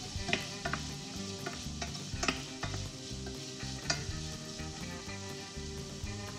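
Food sizzling in a metal pot as it is stirred with a wooden spoon, the spoon knocking against the pot now and then.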